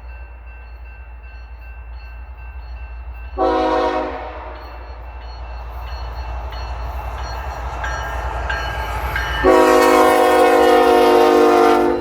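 Diesel locomotive horn sounding for a grade crossing: one short blast about three and a half seconds in, then a long blast from about nine and a half seconds that cuts off near the end, over the steady low rumble of the BNSF locomotives' diesel engines, which grows slowly louder as they approach.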